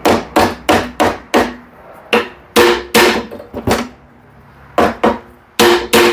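Brass hammer striking the crankshaft end of a Briggs & Stratton 3.5 hp engine about fourteen times in quick groups, each blow ringing briefly through the flywheel, to shock the flywheel off its taper without a puller.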